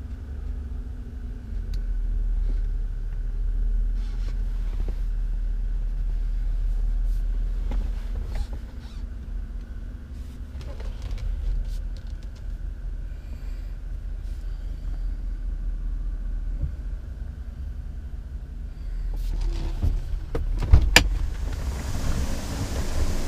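Low steady rumble inside the cab of a 2012 Chevrolet Avalanche with its engine running, with light clicks and bumps from handling in the cab. Near the end there are a few sharp knocks, followed by a steady hiss.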